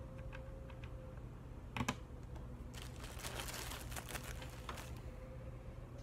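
Plastic mechanical keyboard switches (Gateron Milky Yellows) being handled and pressed into a GK64X keyboard: a few light clicks, a loud double snap about two seconds in as a switch seats, then a dense run of plastic clicking and clattering for about two seconds.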